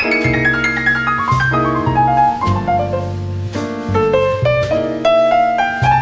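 Grand piano playing a jazz instrumental passage, with cascading runs of notes falling in pitch over the first half and climbing phrases in the second half. A double bass plays underneath.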